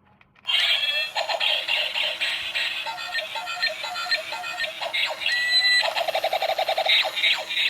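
A toy's small built-in speaker plays an electronic tune of quick notes, starting suddenly about half a second in, after a button press.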